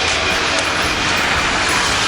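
A train passing close by: a steady rushing noise.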